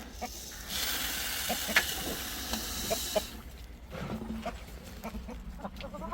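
Chickens clucking, with a steady rushing hiss from about a second in until about three seconds in and a few light clicks and taps.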